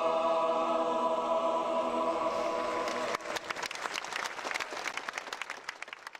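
A choir holds the final chord of a worship song, cutting off about three seconds in; applause follows, growing fainter until it stops.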